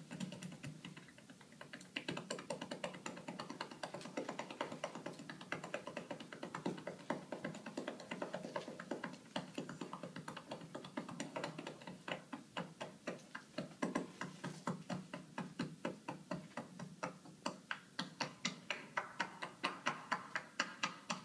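Massage percussion (tapotement): a therapist's hands, held palm to palm, rapidly striking a seated client's upper back, making a quick, even patter of slaps several a second. The slaps grow louder near the end, then stop suddenly.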